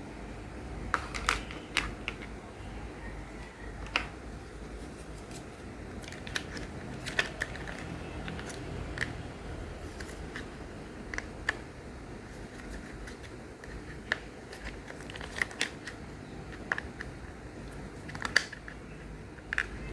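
Small plastic building-toy pieces clicking and snapping together during assembly, in irregular single clicks and short clusters over a steady low hum.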